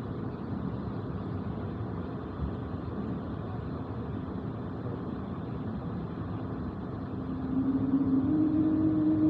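Steady airliner cabin noise inside an Airbus A220. From about seven seconds in, a low drone from its Pratt & Whitney PW1500G engines grows louder and rises a little in pitch as the engines spool up.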